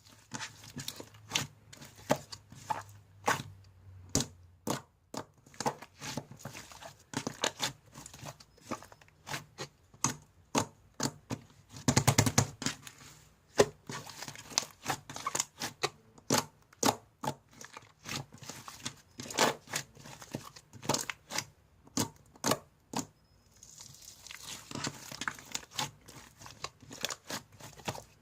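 Slime being squeezed, pressed and stretched by hand, giving an irregular run of sharp pops and crackling clicks, with denser crackling about twelve seconds in and again near the end.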